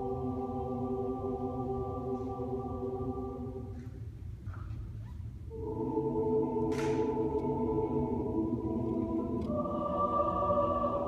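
Large mixed choir singing long sustained chords. The sound eases off about four seconds in, a new, louder chord enters about a second and a half later, and the harmony shifts again near the end.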